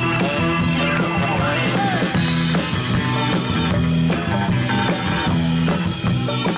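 Background music with a steady beat and no singing.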